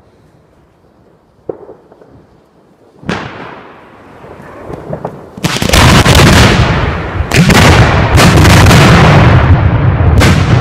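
Aerial firework shells bursting outdoors. A sharp report comes about three seconds in, then from halfway through a rapid run of loud bangs overlapping into a continuous rolling rumble, with more sharp cracks on top.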